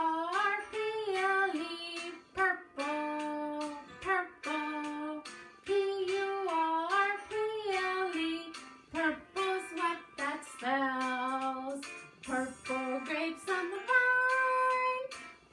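A children's song about the colour purple: a single singing voice carries a simple melody in held notes, phrase after phrase with short breaks between.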